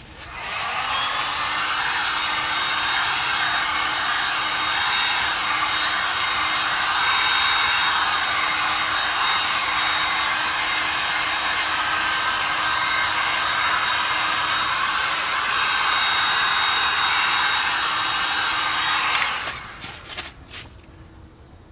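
Hand-held hot-air blower running steadily, blown down onto wet pour-art resin, then switched off about 19 seconds in.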